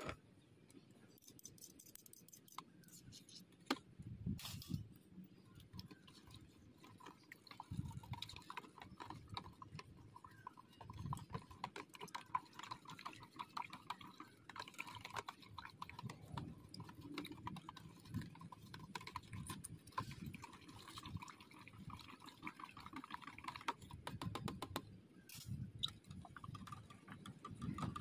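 Quiet drink-making sounds: liquid pouring and dripping, with many small clicks and clinks and a few soft thuds.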